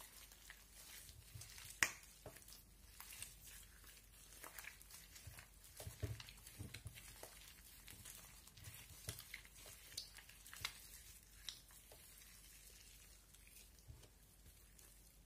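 Orange slime mixed with shaving cream being squeezed and kneaded by hand, making scattered small clicks and pops with soft low squelches. The sharpest pop comes about two seconds in, and the sounds thin out after about twelve seconds.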